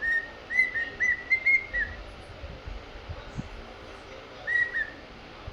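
Male cockatiel whistling its courtship song: a quick run of short, clear notes at nearly one pitch, each dropping at its end, then a pause and two more notes near the end.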